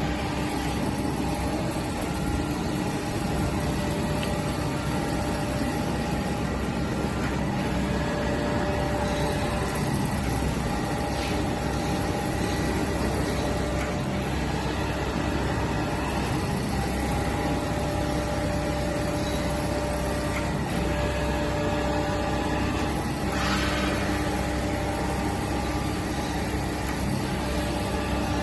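Kent hydraulic surface grinder running, its hydraulic power pack driving the table back and forth at raised traverse speed: a steady machine hum with several constant tones.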